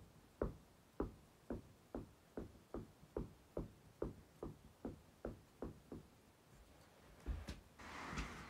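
A small ball dribbled on a carpeted floor: steady thuds about two and a half a second, stopping about six seconds in. A couple of heavier thumps and some rustling follow near the end.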